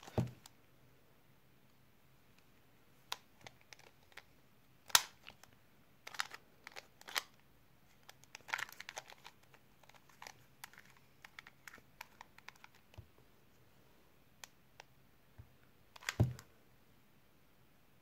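Scattered sharp plastic clicks and clacks of a 2x2x1 puzzle cube being turned and handled in quick irregular bursts, with a heavier knock at the start and another about 16 seconds in.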